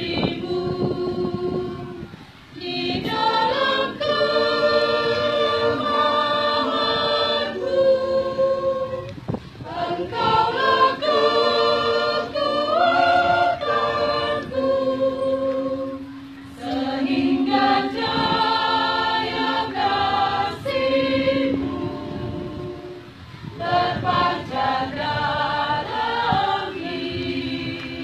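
Church congregation choir, mostly women's voices, singing a sacred song in parts without accompaniment. Long held notes come in phrases, with brief breaks for breath about every seven seconds.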